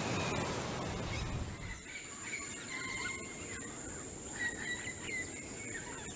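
Natural ambience with scattered short bird chirps and whistles over a steady high-pitched insect drone. A low rushing noise fades out in the first two seconds.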